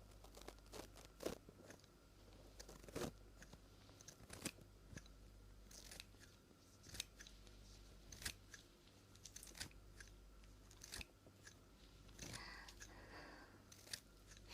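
Scissors snipping hair close to the microphone: single crisp cuts at an uneven pace, about one every second or so, with a soft rustle near the end.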